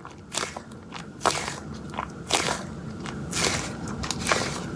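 Orange squishy toy dumpling covered in little sprinkles being squeezed and pressed by hand, making about six short squishing noises at irregular intervals.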